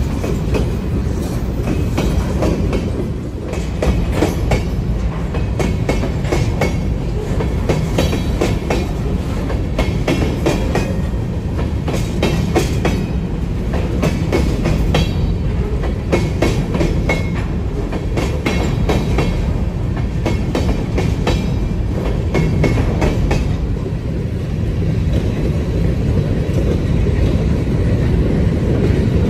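Freight train rolling past, a steady low rumble with the wheels clacking over rail joints.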